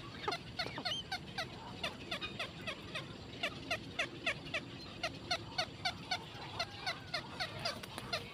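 Black-crowned night heron nestlings giving a fast, steady chatter of short, downward-sliding calls, about four a second: the begging calls of chicks in the nest.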